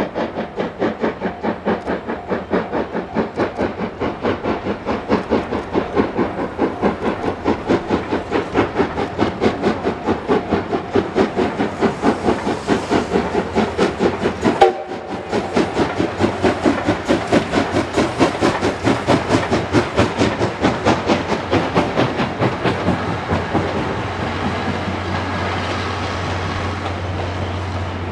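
C57-class two-cylinder steam locomotive working along the line, its exhaust chuffing in a fast, even rhythm. There is a brief break about halfway, and near the end the chuffs fade into a steady rumble of the train rolling past.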